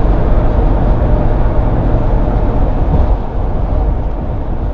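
Steady cabin noise of a Ford Crown Victoria Police Interceptor driving at highway speed: engine and tyre drone with wind noise, easing off slightly near the end.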